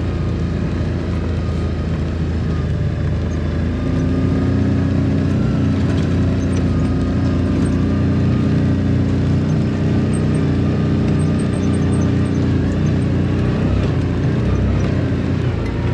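Farm vehicle's engine running steadily in low gear at low speed, getting somewhat louder and more strained from about four seconds in.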